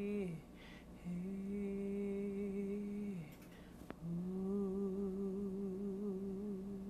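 A person humming three long held notes at nearly the same pitch, each with a slight waver, with short gaps between them; a single sharp click just before the third note.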